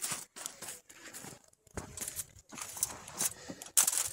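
Footsteps crunching on packed, half-melted snow, a step about every half second as someone walks away, the last step near the end the loudest.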